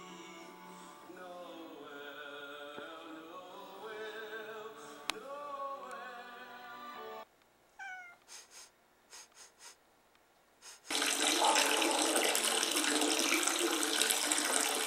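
Music with singing for the first seven seconds, then a few seconds of near quiet broken by some short faint sounds. From about eleven seconds in, water runs steadily and loudly in a small bathroom.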